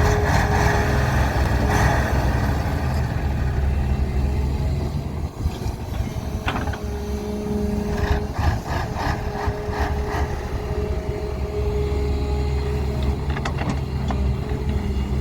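Doosan 140 hydraulic excavator working: its diesel engine runs with a steady low drone and a whine that comes and goes. A few sharp clanks come around the middle and near the end.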